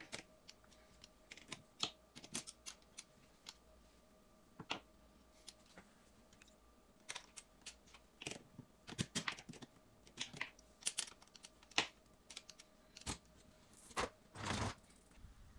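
Scattered light clicks and taps of a hand screwdriver and fingers working the dishwasher's metal top mounting brackets, which are being screwed to the wooden beam above. A faint steady hum runs underneath.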